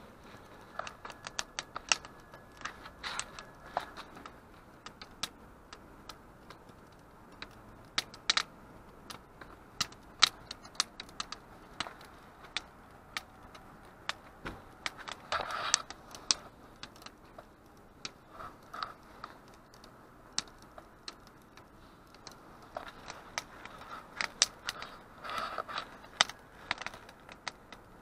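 Small campfire in a fire stand crackling, with irregular sharp pops and snaps. A couple of brief rustles partway through and near the end.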